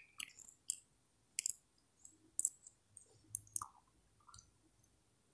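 A dozen or so faint, irregular clicks, scattered unevenly and dying away about four and a half seconds in.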